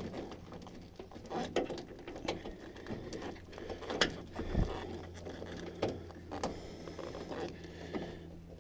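Scattered clicks, knocks and rubbing as plastic wiring-loom connectors are worked by hand through a tight opening in a van door, over a steady low hum.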